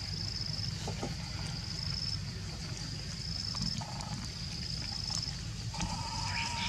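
Outdoor ambience: a steady low rumble under a high, thin whistling note that repeats about every second and a half, each note lasting about a second. Near the end a lower steady note joins in.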